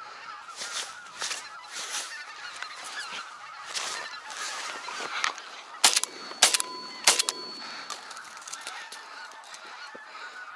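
A large flock of wild geese honking and calling continuously overhead. About six seconds in, three shotgun shots go off in quick succession, a little over a second in all.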